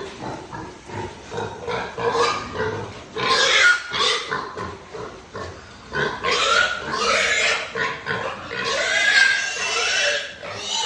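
Pigs squealing and grunting, with three long, loud bouts of squealing about three, six and nine seconds in.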